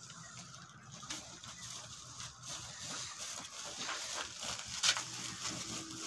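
Woven plastic feed sacks rustling and crinkling, with grain shifting, as the feed is handled by hand. There is a louder crinkle about five seconds in.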